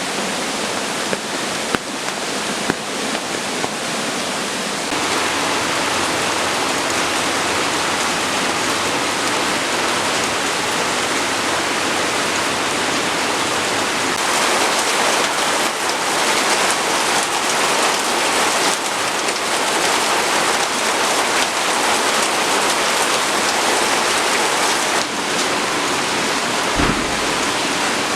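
Steady rainfall, a dense hiss of drops. Single drops tap out separately over the first few seconds, and the rain thickens and grows louder about five seconds in. A brief low thud comes near the end.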